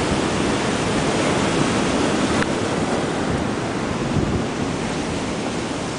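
Steady rush of water pouring through a river dam's open gates, with wind buffeting the microphone.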